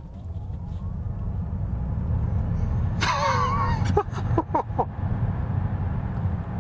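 Cabin sound of a Tesla Model X Plaid accelerating hard from low speed: a low road and tyre rumble growing steadily louder, with a faint rising electric-motor whine in the first two seconds. About three seconds in, a high-pitched cry and a few short bursts of laughter.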